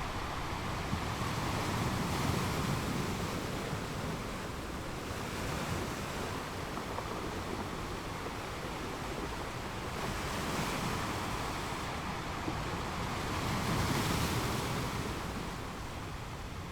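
Ocean waves washing onto a beach, a steady surf wash that swells three times, loudest near the end.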